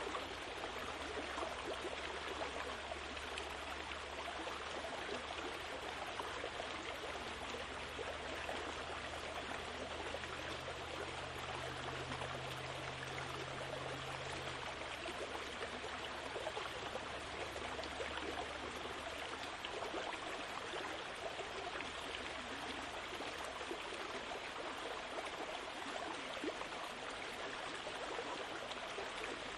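Steady rushing noise like flowing water, with no rhythm or pitch, and a faint low hum through about the first half.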